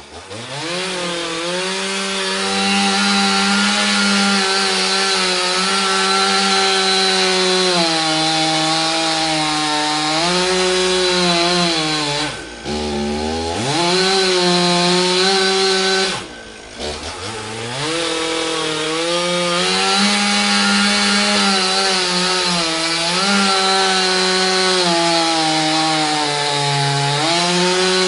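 Chainsaw running at high speed while sawing. It revs up at the start, and its pitch sags and recovers as it works. Twice, about halfway through and again a few seconds later, it drops sharply and revs back up.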